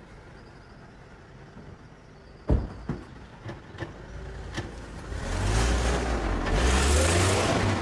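A car door slams shut, followed by a few lighter clicks, then a car engine revs, growing louder as the car pulls away.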